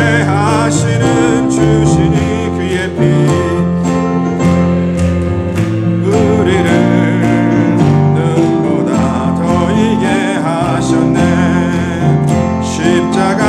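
A hymn sung with instrumental accompaniment and a steady beat, the voice wavering with vibrato on held notes.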